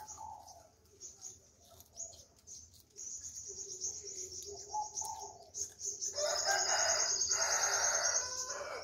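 A rooster crowing once, a long crow of about two and a half seconds starting about six seconds in, over a high, rapid trilling.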